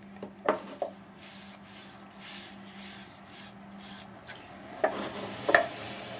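Cloth rubbing wipe-on polyurethane finish onto a turned wooden bowl in a run of soft, repeated strokes. A few sharp metallic knocks and clinks, near the start and again about five seconds in, come from the tin can of finish being handled and set down. A steady low hum runs underneath.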